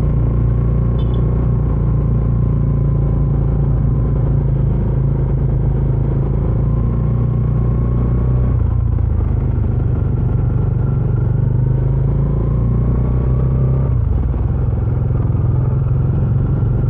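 Bajaj Dominar 400's single-cylinder engine running steadily through its stock exhaust while riding, with its note rising a little twice, about six and eleven seconds in.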